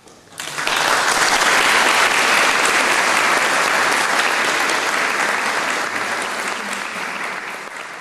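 Audience applauding at the end of a piece, breaking out suddenly about half a second in, full at first and slowly dying down toward the end.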